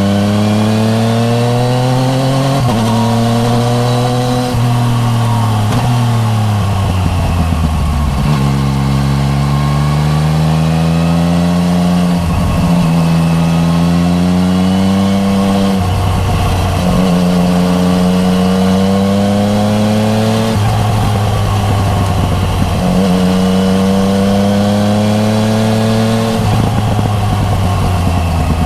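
2015 Yamaha MT-09 Tracer's 847 cc three-cylinder engine through an Akrapovic Racing Line titanium full exhaust, heard loud from the rider's position. It pulls up through the revs again and again, with short breaks at each gear change, and the revs fall for a long stretch about four seconds in before it pulls again.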